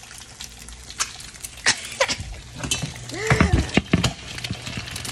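Eggs frying in oil in a pan, with scattered pops and crackles from the spattering oil. About three seconds in there is a short wavering vocal sound with low thumps as the phone is moved.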